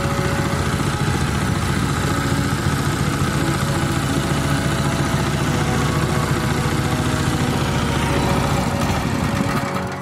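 Small petrol engine of a long-tail boat motor running steadily, turning a long propeller shaft that drives a wooden river boat. It dips and fades out near the end.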